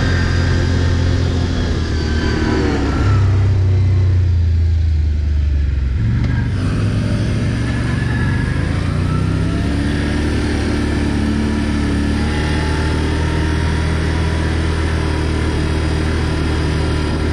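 ATV engine running while riding, its pitch rising and falling with the throttle: up about three seconds in, down around six seconds, then climbing again.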